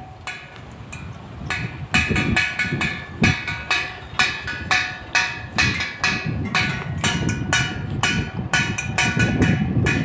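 Wind-driven plastic-bottle bird scarer: its spinning rotor swings a nail on a string against a metal plate, giving rapid, irregular metallic clanks that ring, about three a second, louder from about a second and a half in. Wind rumbles on the microphone underneath.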